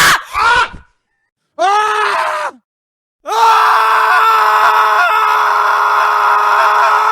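Human screams in separate takes. A short one ends just after the start, another of about a second drops in pitch at its end, and from about three seconds in a long, steady, high scream holds its pitch and runs on.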